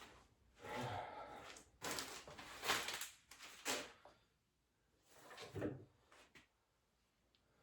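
Handling noise: a series of short rustles, scrapes and knocks, about six of them over the first six seconds, then quiet.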